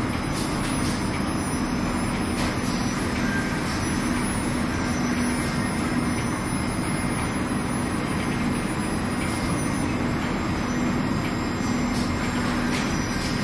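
Industrial laundry ironer running: a steady, even machine noise with a low hum and a few faint ticks.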